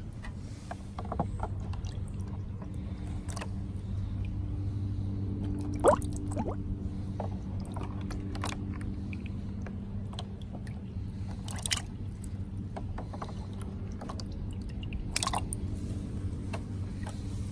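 Gel water beads handled in a shallow tub of water: small wet plops and squishes, with a few sharper splashes about six, twelve and fifteen seconds in. A steady low hum runs underneath.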